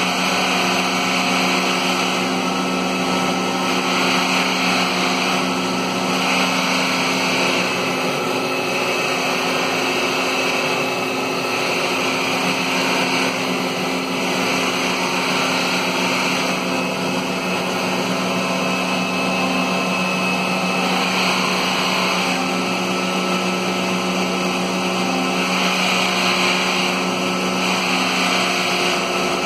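Maslow CNC's router spindle running steadily while the bit cuts through plywood. The cutting noise swells and eases every few seconds over a constant motor hum.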